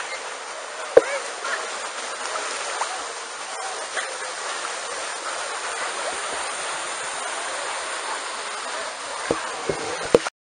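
Steady wash of pool water splashing and sloshing around wading and swimming huskies, with a faint murmur of distant voices and a few short sharp sounds about a second in and again near the end. The sound cuts off suddenly just before the end.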